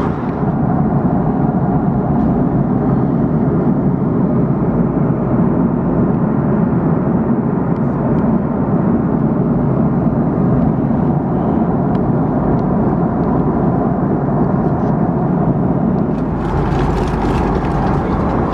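Steady cabin noise inside an Airbus A330-300 airliner with Rolls-Royce Trent 772B engines: the even rush of engine and airflow noise. A deeper rumble and a few light clicks come in near the end.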